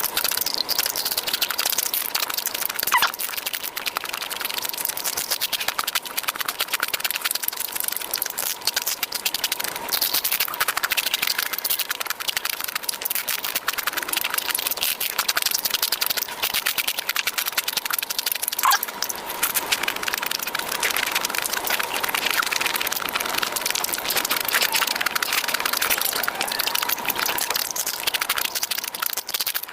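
Close-miked eating sounds: continuous chewing and crunching with dense, crackly clicks, and a sharper crack about 3 seconds in and again near the middle.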